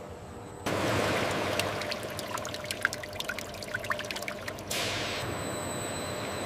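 A stream of crude fish oil pouring from a pipe outlet into a full vat, splashing. It starts suddenly about half a second in; near the end the splashing settles into a smoother, steady pour with a faint high whine.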